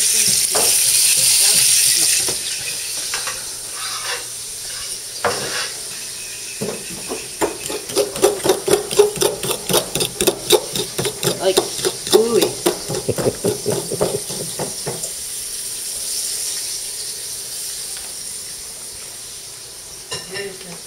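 Fish frying in oil, sizzling brightly for the first couple of seconds. A few seconds later a spoon stirs mashed potatoes in a bowl: quick scraping, clicking strokes, about three a second, that stop after several seconds.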